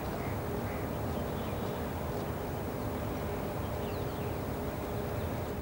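Outdoor forest ambience: a steady low rumble with a faint hum, and a few faint, brief bird chirps.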